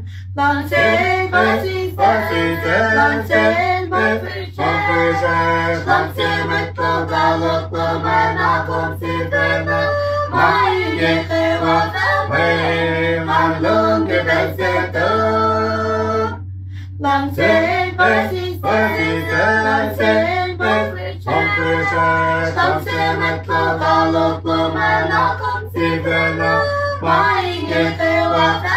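A family group singing a song together unaccompanied, a woman's voice and children's voices among them, with held notes and one short break about two-thirds of the way through. A steady low hum runs underneath.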